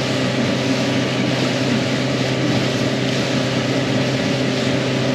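Motorboat running at speed: a steady engine drone under a constant rush of noise, with no change in pace.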